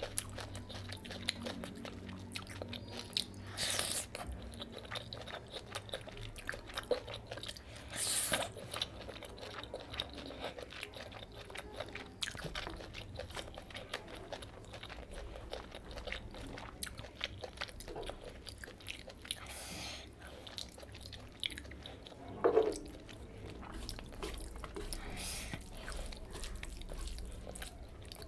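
Close-miked eating by hand: fingers mixing and squishing rice with curry gravy on a tray, with chewing and biting, dense small wet clicks throughout and a few louder sudden sounds.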